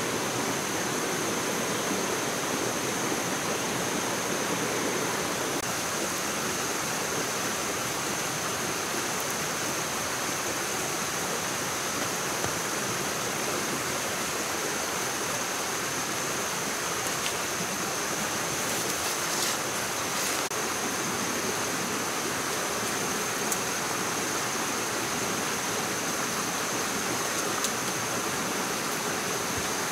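Steady rushing of running water, like a forest stream, with a constant high whine above it. A few faint clicks come about two-thirds of the way in.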